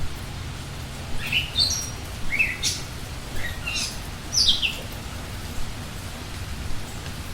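A songbird gives a run of short, high chirps, several sliding downward in pitch, between about one and five seconds in, over the steady hiss and patter of rain.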